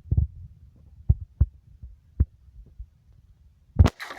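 Irregular dull, low thumps and knocks, with a sharper, louder knock near the end.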